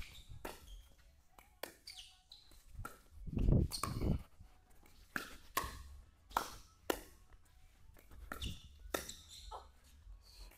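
Pickleball paddles striking a hard plastic ball back and forth in a rally: sharp pops at irregular intervals, with a short echo off the metal walls. There is a louder, heavier thump about three and a half seconds in.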